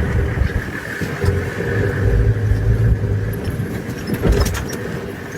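Vehicle engine idling, a steady low rumble that swells a little around the middle.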